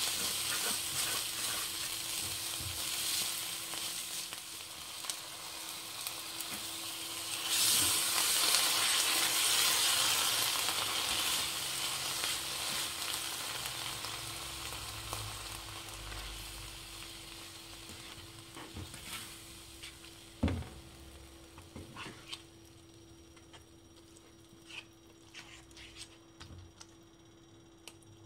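Vegetables sizzling as they fry in a hot nonstick pan, turned and stirred with a spatula. The sizzle swells sharply about seven seconds in, then dies down gradually through the second half, with a few light knocks of the spatula against the pan near the end.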